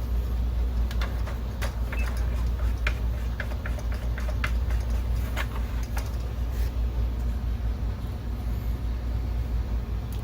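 NEC VE281X DLP projector running just after power-up with a fresh lamp: its cooling fans and spinning color wheel make a steady low hum, with scattered light clicks over it.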